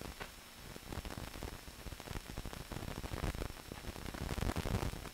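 Hiss and irregular crackle of an old optical film soundtrack, with no other sound standing out.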